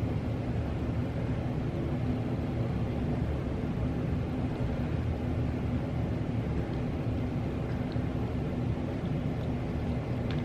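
Steady low rumble with a faint constant hum, unchanging throughout.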